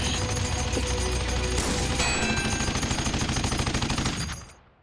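Rapid automatic gunfire from a mounted turret gun, a dense unbroken stream of shots that dies away to near silence just before the end.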